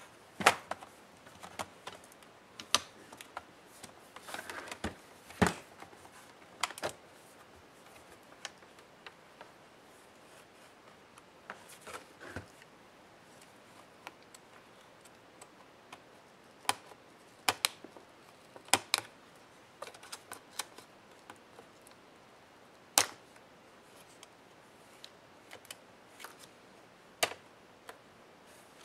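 Irregular sharp plastic clicks and snaps as the keyboard palm-rest deck of an HP Envy x360 laptop is unclipped and lifted off its base, and its ribbon-cable connectors are worked loose.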